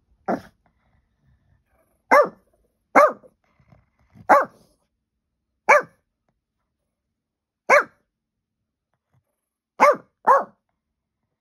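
A small dog barking: eight single barks with gaps of one to two seconds, the last two close together. The dog is barking at nothing that its owner can find.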